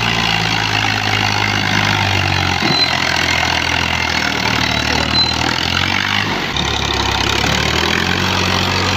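Ghazi tractor's diesel engine running steadily under full load while pulling a heavily loaded trolley, a load heavy enough to lift its front wheels. The low engine note shifts pitch about two and a half seconds in and again near six and a half seconds.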